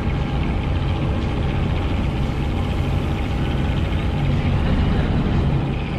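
Fishing boat's engine idling, a steady low hum that does not change.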